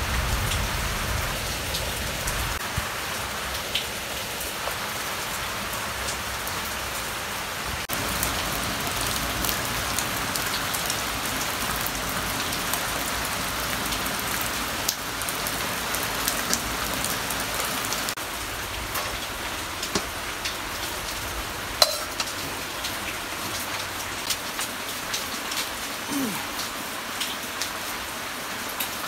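Steady rain falling, with scattered small clicks and drips; one sharper click about three quarters of the way through.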